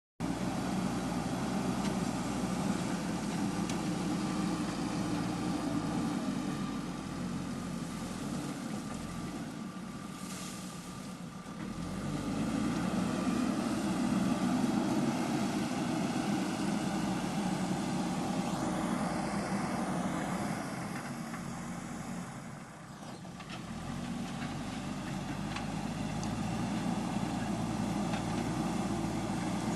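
JCB 3DX backhoe loader's diesel engine running steadily as it works. Its sound eases off twice, about a third of the way in and again past two thirds, then picks up again.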